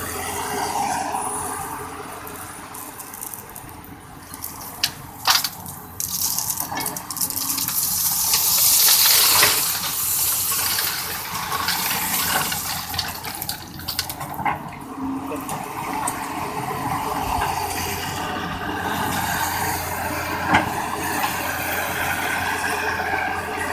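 CAT 320D excavator's diesel engine running steadily while it loads split stone, with a loud rushing pour of crushed stone about a third of the way in and sharp clacks of rock against steel now and then.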